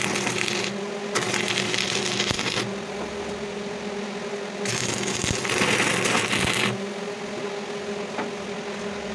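Balmer welder's arc crackling as it cuts through a rotten steel cab floor panel, in three bursts of about one to two seconds, the longest beginning near the middle. The welding machine keeps up a steady low hum between bursts.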